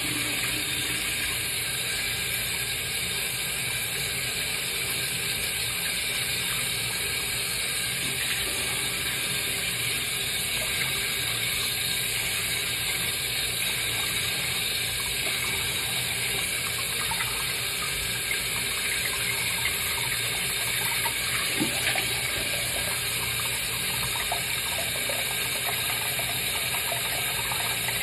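Tap water running steadily into a bathroom sink during a face rinse, with a few small splashes from water cupped to the face.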